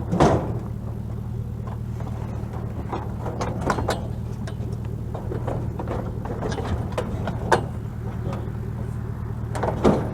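A vehicle engine idling steadily, with scattered clunks and knocks of scrap items being handled and moved, the loudest just at the start and again near the end.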